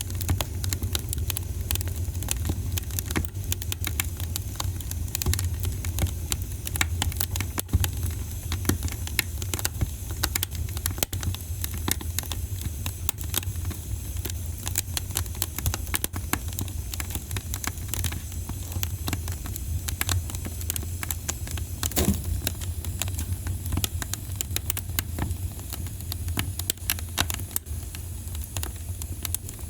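Wood fire in a fireplace crackling and popping, with dense irregular snaps over a steady low rumble, and one louder pop about three-quarters of the way through.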